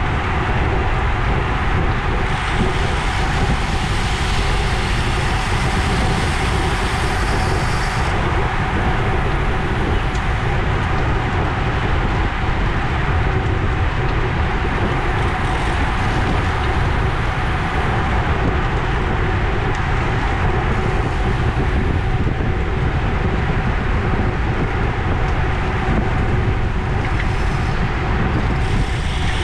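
Steady wind rush on the microphone with tyre and road noise from a road bike riding in a racing pack at about 20 mph. A faint high buzz comes in for several seconds near the start.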